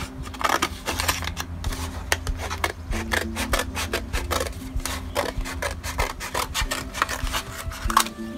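Scissors cutting through a paper plate: a run of repeated crisp snips with paper rustling as the plate is turned.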